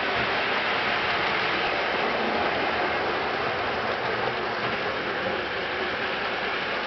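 Model electric trolley running along its track, a steady rushing noise of its motor and wheels on the rails.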